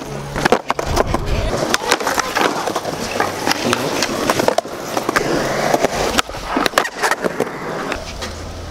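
Skateboard wheels rolling on concrete, with a run of sharp clacks from the board popping and landing tricks.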